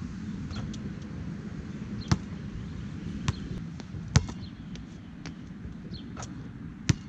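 Nike Jordan Hyper Grip basketball bouncing on a hard court: a few separate sharp bangs, the loudest about four seconds in, over a steady low rumble.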